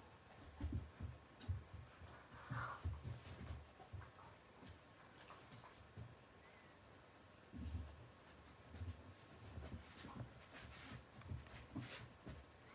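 Coloured pencil scratching faintly on a colouring-book page in small circular shading strokes, with soft irregular bumps of the hand and paper.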